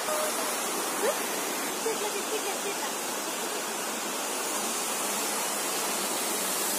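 A steady rushing noise, with faint voices in the first couple of seconds.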